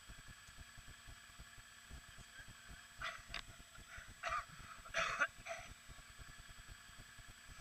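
ATV engines idling, a low, fast, even pulsing throughout. About three seconds in comes a run of about five short, sharp yelps over roughly two and a half seconds, the loudest sound here.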